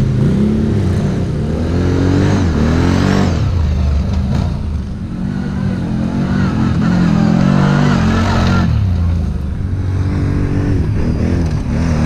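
Quad bike (ATV) engine running under load on a climb, the revs rising and falling twice.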